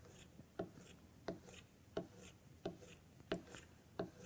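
Chisel being pulled back along a leather strop charged with green honing compound, in short regular scraping strokes about every two-thirds of a second. This is stropping, which polishes and keeps the chisel's edge sharp between sharpenings.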